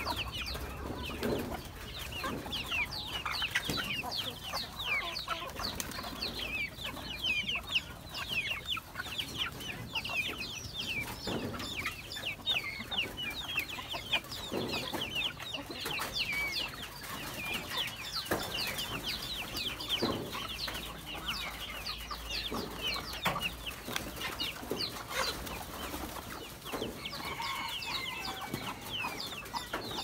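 A flock of chickens clucking in a farmyard, with a steady stream of short, high falling chirps throughout.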